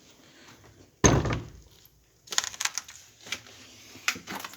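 A door banging open with a heavy thud about a second in, followed by a quick run of clicks and scuffs.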